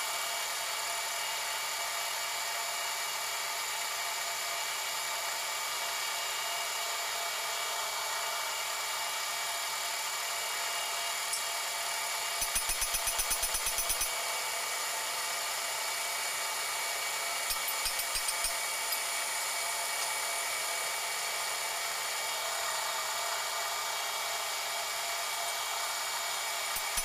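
Manual metal lathe turning down a crusher-machine shaft, running with a steady whine and the hiss of the tool cutting. About halfway through, a quick run of sharp ticks lasts for about a second and a half, and a few more follow a few seconds later.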